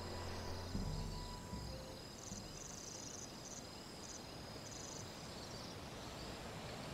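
Faint high-pitched insect chirping in short repeated runs over quiet outdoor ambience, while soft background music fades out in the first second and a half.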